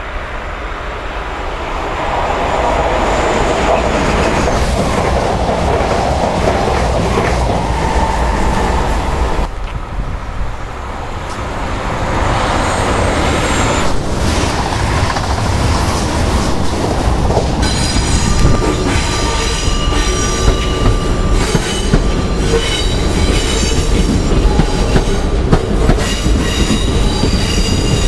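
SNCF Z 20500 double-deck electric commuter trains running by on steel rails, the rumble rising as a train approaches. From about two-thirds of the way in, steady high-pitched wheel squeal with clicks as a train rolls slowly round curved station track.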